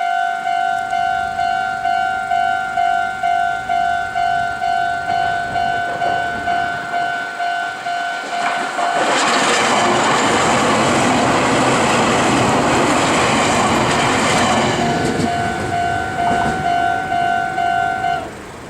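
Japanese level-crossing warning bell ringing in a steady electronic ding-ding pattern, about two and a half rings a second. About nine seconds in, a Meitetsu electric train runs through the crossing with loud rolling rail and wheel noise for about six seconds, covering the bell. The bell comes back as the train clears and stops shortly before the end.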